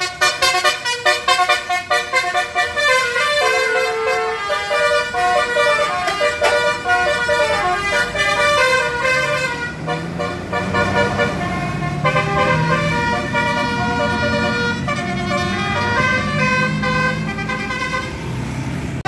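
A bus 'telolet' horn, a set of switched air horns, playing a melody of pitched toots: rapid short notes for the first few seconds, then longer held notes stepping up and down. A low rumble joins underneath from about halfway.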